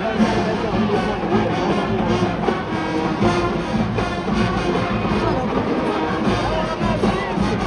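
A brass band, most likely the school marching band in the stands, playing a tune with trumpets and trombones.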